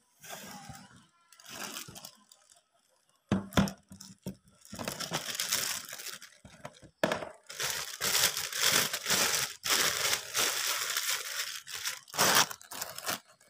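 Plastic packaging crinkling and tearing in irregular bursts as it is pulled off a small keyboard controller, with a sharp knock about three seconds in.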